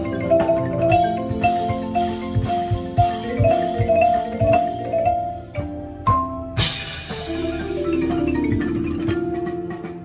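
Marching band front ensemble playing, with the marimba up close: quick mallet notes over held tones and low drum hits beneath. About six and a half seconds in, a bright wash swells in over the top.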